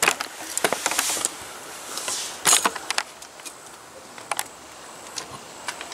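Handling noise: scattered light clicks, taps and short rustles as the camera is carried in close and the scooter's opened plastic handlebar switch housing is handled, with a last click about four and a half seconds in.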